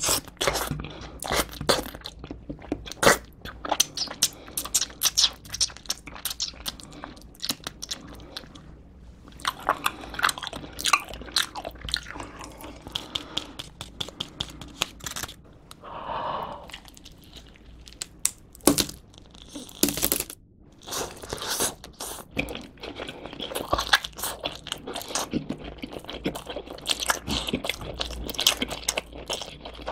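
Close-miked chewing and biting of a pepperoni cheese pizza: many sharp crunching and smacking clicks at an uneven pace.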